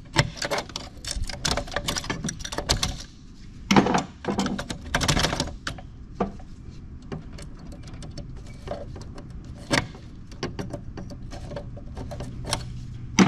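Hand screwdriver turning out a flathead screw that holds a circuit breaker in a metal power assembly: a run of small metallic clicks and scrapes, with a couple of louder clatters about four and five seconds in.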